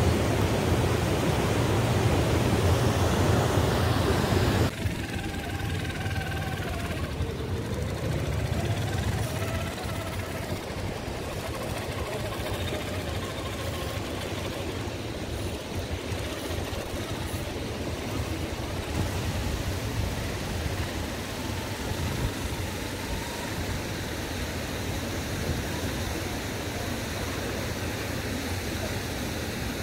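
Radio-controlled scale crawler truck's electric motor whining, its pitch rising and falling with the throttle, over a steady rushing noise. The rushing is loud for the first few seconds and drops off suddenly about five seconds in.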